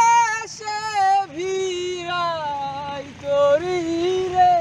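A high voice singing a slow melody of long held notes that slide and bend in pitch, over a faint low hum.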